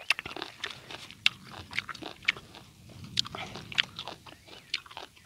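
Close-miked chewing of lemon pieces coated in red chilli powder: a run of irregular sharp clicks and crunches from the mouth.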